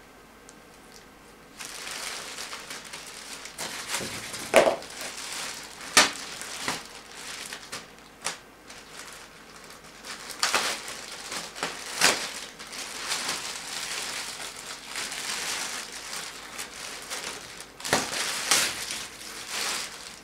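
Clear plastic wrapping film crinkling and crackling as it is pulled and handled, in uneven bursts with several sharp, loud crackles, starting about a second and a half in.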